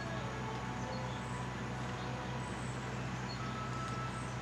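Steady outdoor background noise: a constant low mechanical hum under an even hiss, with faint, brief high chirps every second or so.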